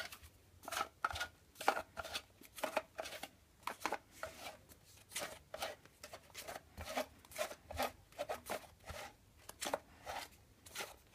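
Foam Nerf Elite darts being pushed one at a time into a plastic Nerf Sonic Ice clip magazine: a run of short, irregular plastic clicks and scrapes, about two or three a second.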